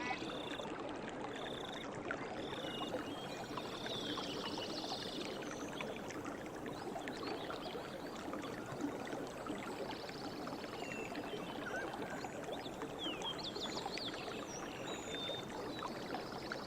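Stream water running steadily, with scattered short bird chirps and calls above it and a quick cluster of them about two-thirds of the way through.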